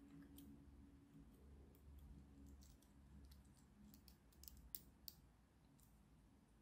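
Faint, light clicks and ticks of thin 3D-printed plastic puzzle pieces being handled and pushed together, mostly in the second half, over a low room hum.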